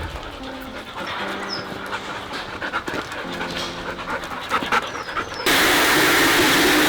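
A dog panting. About five and a half seconds in, a much louder steady rushing noise cuts in abruptly and drowns it out.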